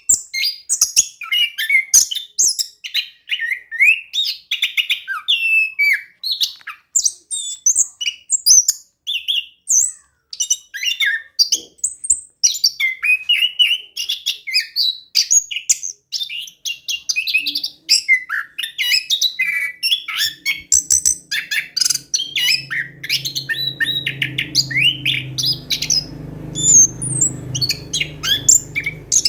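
Orange-headed thrush singing a non-stop, varied song of rapid chirps and short whistles with only brief pauses: a bird in full song. A low steady hum joins about two-thirds of the way through.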